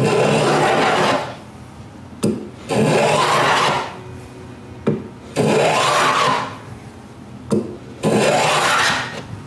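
Four strokes of a hand plane shaving the edge of a wooden cabinet face frame, each about a second long, with a short knock just before each of the last three. The plane is taking fine shavings to trim the face frame for a tight fit.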